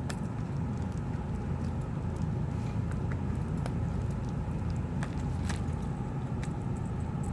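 A handful of small, sharp clicks and taps from a replacement tablet battery being handled and pressed into place, over a steady low hum.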